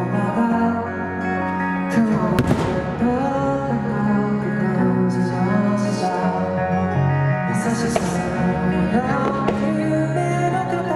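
An anime song playing loudly, with fireworks going off over it: a few sharp bangs and bursts of crackling scattered through the music.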